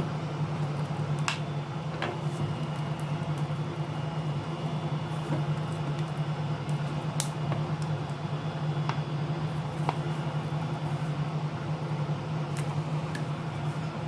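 A steady low hum, with a few short, sharp clicks scattered through it.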